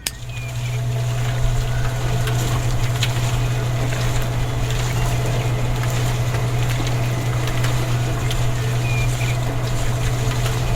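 A small motor running steadily, with a strong even low hum. It starts right at the cut and holds level throughout.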